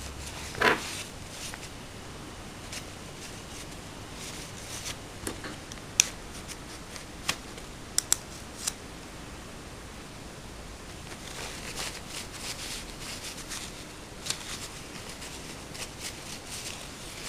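A paper tissue rustling and crinkling as small metal parts of a Hi-Capa airsoft pistol are wiped clean, with a few sharp clicks and taps of metal parts and tools, several close together around the middle.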